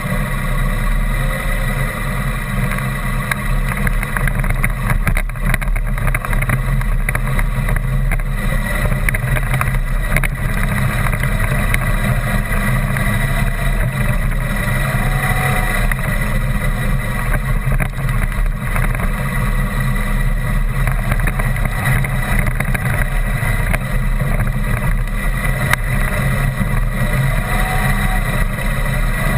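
Vehicle engine running steadily while driving along a rough dirt track, with a few knocks from the uneven ground about five and ten seconds in.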